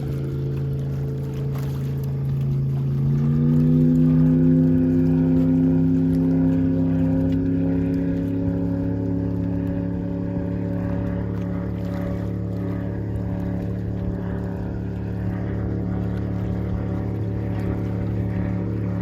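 MerCruiser 496 Mag V8 of a Baja 232 speedboat running steadily; about three seconds in the revs rise to a slightly higher, louder note and hold there.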